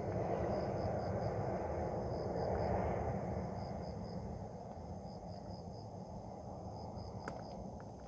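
Insect chirping: a high, pulsed chirp repeating in short groups about once a second, over a low rushing noise that fades gradually.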